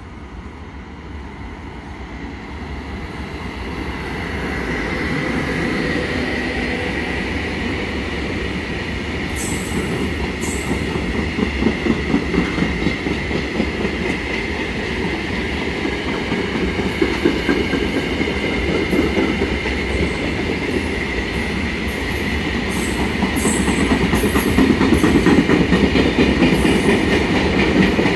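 Freight train of grain wagons hauled by a Class 193 Vectron electric locomotive passing close by. It grows steadily louder as it comes near, and wheels clatter rhythmically over the rail joints as the wagons roll past.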